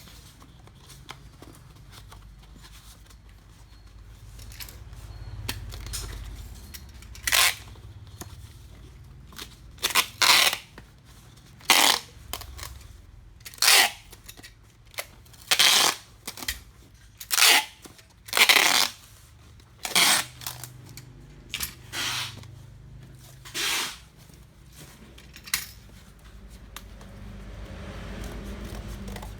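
Hand packing of a parcel: about ten short, sharp rasping strokes of packaging material being worked, one every second or two through the middle stretch, over a low steady hum.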